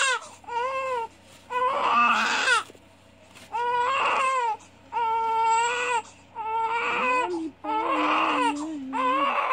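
Newborn baby crying in a run of wails, about seven in all, each lasting roughly a second with short breaths between.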